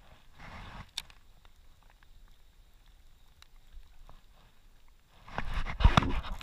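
Handling noise from a baitcasting rod and reel: faint clicks and rustle, then, about five seconds in, loud rubbing and knocks as the rod's rubber grip brushes against the camera's microphone.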